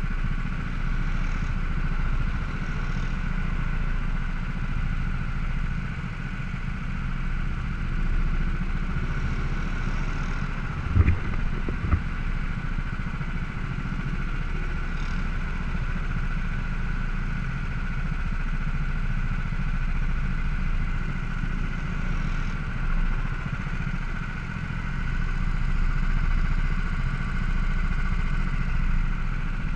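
Go-kart engines idling steadily while the karts wait in line, with two sharp knocks a second apart about a third of the way in.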